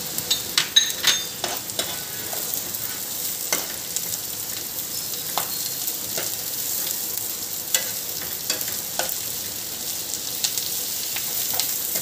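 Chopped capsicum and onion sizzling in butter and oil in a frying pan while a steel ladle stirs them. The ladle clicks and scrapes against the pan, several times in quick succession about a second in, then now and then.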